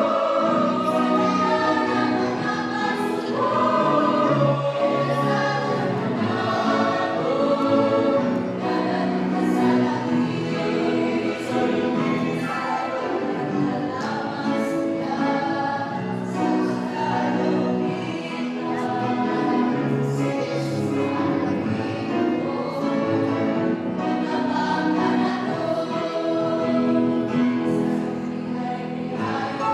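Mixed choir of young men and women singing a hymn in Cebuano, held notes running on continuously.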